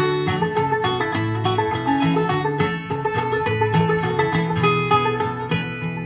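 Banjo and acoustic guitar playing a bluegrass tune together, with quick picked banjo notes over the guitar's chords.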